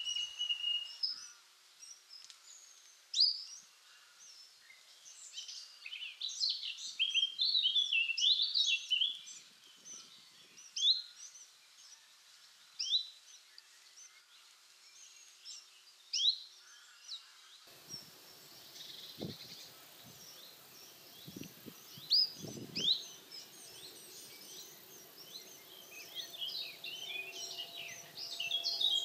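Songbirds singing, many short chirps and whistled notes overlapping throughout. About eighteen seconds in, a low background rumble with a few dull knocks comes in under the birdsong.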